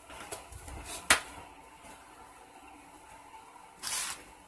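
Workbench handling sounds: a metal tin of paste wax set down on the wooden bench with a sharp click about a second in, then a brief rustle near the end as a plastic blister pack of screws is picked up.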